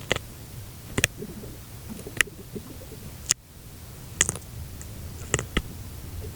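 Sharp, separate clicks and ticks, roughly one a second, over a steady low hum.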